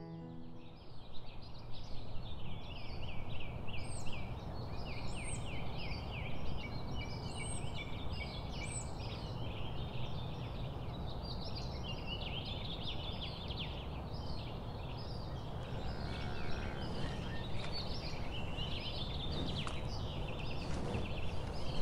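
Many small birds chirping and chattering continuously, a dense chorus of short high calls, over a steady low rumble of outdoor background noise.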